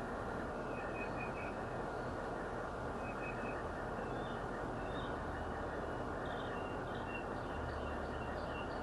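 Outdoor ambience: small birds chirping in short quick runs of three or four notes over a steady background noise.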